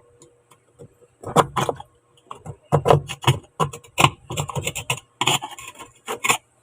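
Irregular clatter and knocks of hard parts being handled, a dozen or so sharp hits coming in quick clusters, over a faint low steady hum.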